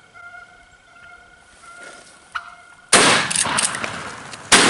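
Two loud 20-gauge shotgun blasts about a second and a half apart, each a sharp crack followed by a long echoing tail.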